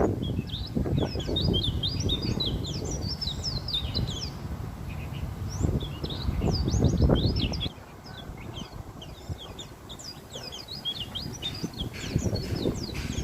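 White-eye (pleci) giving rapid strings of short, thin, high chirps. Under them runs a low rumble of background noise that drops away a little past halfway.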